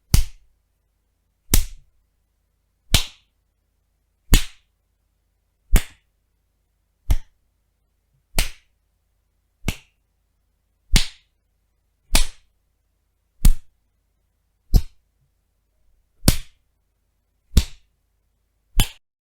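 Film-style punch sound effects: fifteen separate sharp punch hits, one about every 1.3 seconds, each with a short tail.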